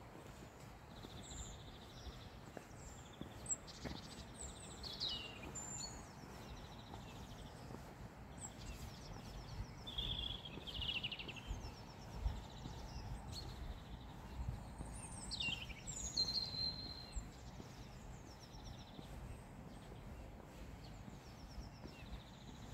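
Several songbirds singing and chirping, with short whistles and trills, busiest in the first two-thirds and thinning out toward the end, over a steady low outdoor rumble.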